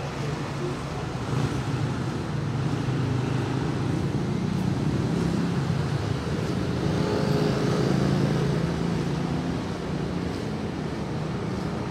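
Motor vehicle engine running nearby on the street, a steady low hum that grows louder toward the middle and eases off slightly near the end.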